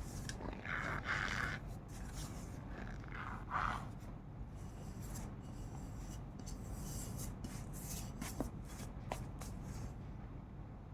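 Cornstarch squeezed and rubbed by hand, making squeaky, crunchy scrunches. Short squeaks come about a second in and again around three and a half seconds in, with scattered crackles throughout.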